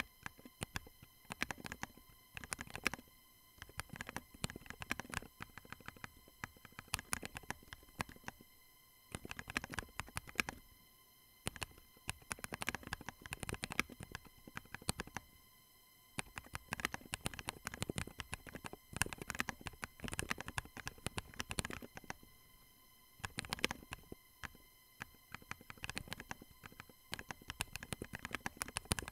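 Fast typing on a 40% keyboard fitted with Durock JWK Semi Silent 62 g linear switches and Drop MT3 keycaps: rapid runs of keystroke clicks with a few short pauses. These switches are dampened only on the return, so each keypress has a normal bottom-out sound and the upstroke is quieter.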